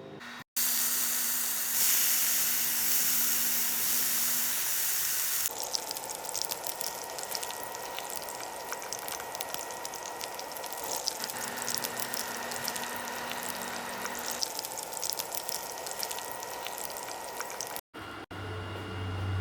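Kitchen sounds: a steady loud hiss, then from about five seconds in a softer hiss with fine crackling, ending in an abrupt cut near the end.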